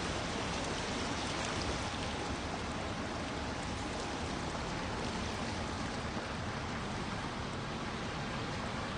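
Steady, even rushing of water, with no breaks or changes.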